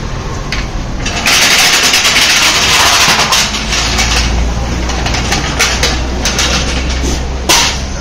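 Tyre-shop workshop noise: a loud hiss starts about a second in and lasts about two seconds, then scattered clicks and knocks over a low steady hum, with a short loud burst near the end.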